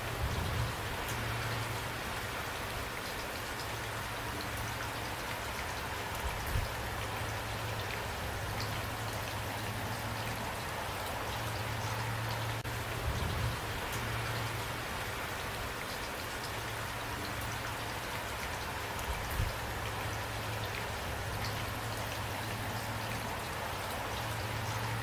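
Steady rain falling, an even hiss scattered with many small drips, and a few brief low thuds about six seconds apart.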